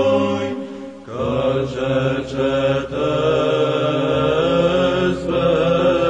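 Background music of slow chanting on long held notes, which fades briefly about a second in and then comes back on new held notes.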